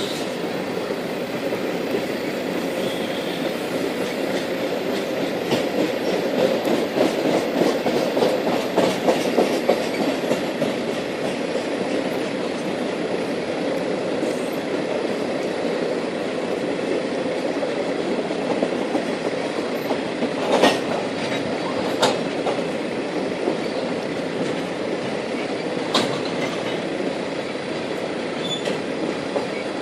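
Freight train rolling past: a steady rumble of steel wheels on rail, louder for a few seconds around the middle of the first half, with a few sharp clanks about two-thirds of the way through.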